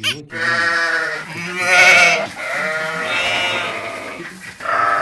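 Sheep bleating: several long, wavering bleats one after another, the loudest about two seconds in.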